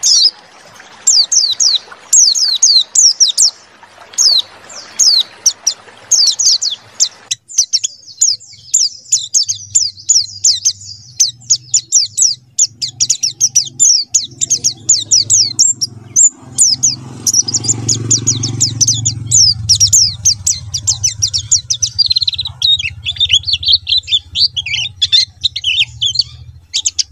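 White-eye (pleci) singing a fast, unbroken run of high chirps and trills. A low hum sits under the song from about ten seconds in.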